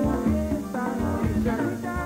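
A live band playing Latin dance music: a woman sings lead over electric bass and guitar, with a steady beat.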